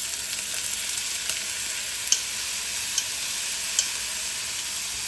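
Rice and onion sizzling steadily in hot oil in a pan while being stirred, with three sharp clicks of the utensil against the pan. The rice is being toasted in the oil before the water goes in.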